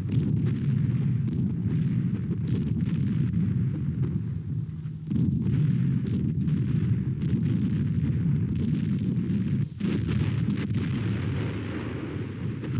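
Battle sounds: a continuous rumble of artillery fire and explosions, with sharp reports scattered through it. The rumble changes abruptly about five seconds in and again near ten seconds.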